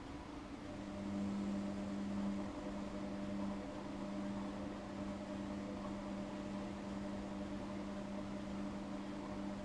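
Workshop heater running: a steady hum over a hiss, with a low drone that joins about a second in and holds.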